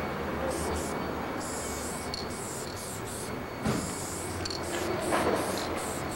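Aerosol spray-paint can hissing in a series of short bursts, about one a second, as a fill is sprayed onto a wall, over a steady low rumble.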